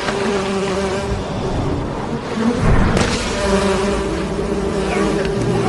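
A swarm of wasps buzzing angrily out of a burst paper nest, with a heavy thud about two and a half seconds in as the nest hits the ground.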